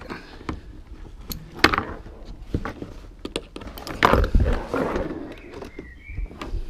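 A padded kayak seat being unclipped and lifted off a plastic sit-on-top kayak hull: scattered clicks of the strap clips and rustling of the seat, with knocks about a second and a half in and a louder thud about four seconds in.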